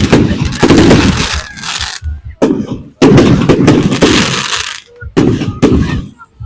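Display fireworks going off in rapid volleys: a dense barrage of bangs and crackle, a brief lull about two seconds in, then more heavy volleys and a few single bangs near the end.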